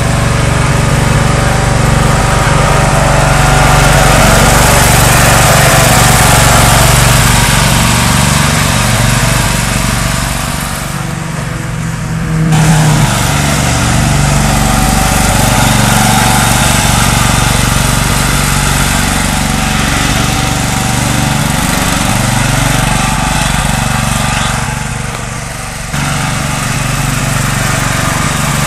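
Toro zero-turn riding mower engine running steadily as the mower drives across the lawn. The sound shifts abruptly twice, about twelve seconds in and near the end.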